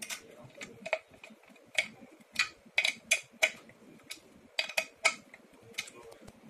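Hand screwdriver tightening a screw in a window comb hinge on a sash frame profile: a series of irregular sharp metallic clicks, roughly two a second.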